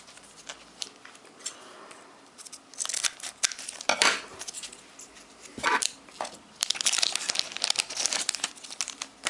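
Foil wrapper of a Pokémon card booster pack crinkling and tearing as it is opened, with cards being handled. The sound is scattered crackles and rustles, with louder bursts about three and four seconds in and a run of crinkling near the end.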